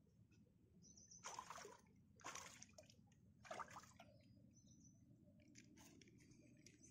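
Faint wet splashing of shallow water among rocks: three short splashes about a second apart in the first four seconds, then only a low hiss.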